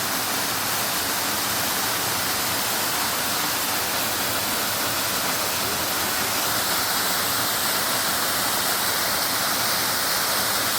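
Mountain waterfall pouring steadily: a loud, even rush of falling water that does not change.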